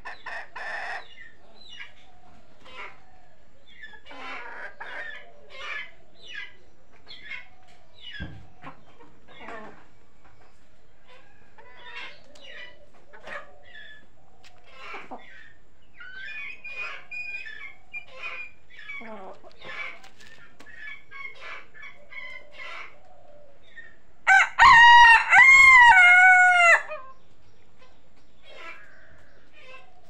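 Chickens clucking in short, scattered calls. About 25 seconds in, a rooster crows once, loudly, for about two and a half seconds.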